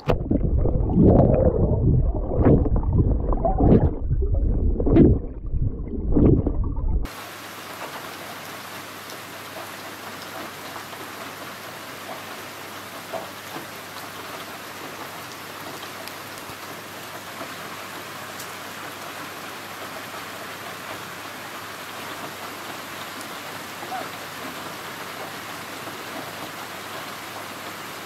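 Loud, muffled sloshing of water against a camera held at the waterline, swelling roughly once a second, for about seven seconds. It then cuts abruptly to the steady hiss of rain falling on the surface of a lake.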